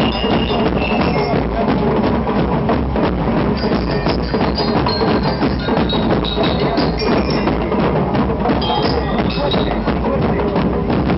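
School marching band playing at close range: bass drums and other drums beating a dense rhythm under a melody of short, high ringing bell notes, as from bell lyres.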